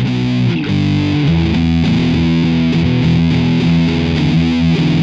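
Outro music: distorted electric guitar playing held chords over a steady beat.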